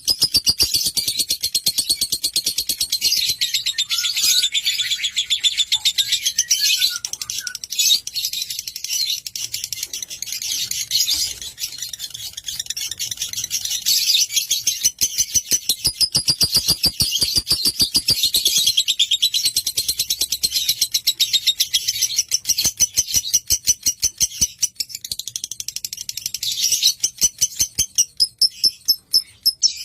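Lovebird singing a long, fast, high chattering trill. Near the end it breaks into separate chirps, about three a second.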